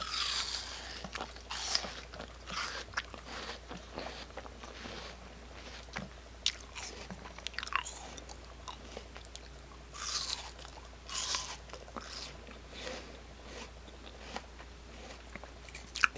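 A dog biting and crunching on pieces of raw apple, chewing in irregular bursts with short pauses between bites.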